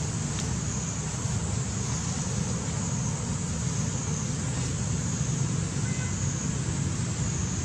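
Steady outdoor background noise: a low rumble with an even high hiss above it, with no distinct events.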